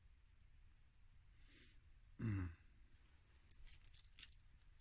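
A man's short low throat-clearing sound, falling in pitch, about halfway through, then a few light metallic clicks and taps near the end as a magnesium fire-starter block and striker are handled.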